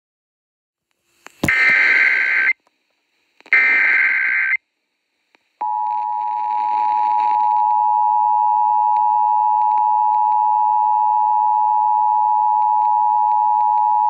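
Emergency Alert System alert over FM radio: two one-second bursts of the screeching digital SAME header tones, then, from about five and a half seconds in, the steady two-tone EAS attention signal held loud and unbroken, announcing a flash flood warning.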